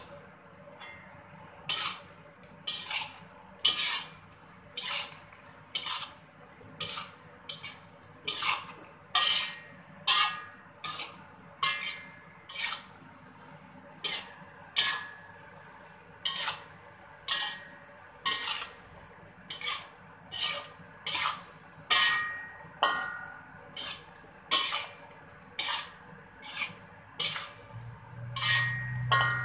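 Long metal spatula scraping and clanking against a steel wok as chicken is stir-fried, in short strokes a little over one a second.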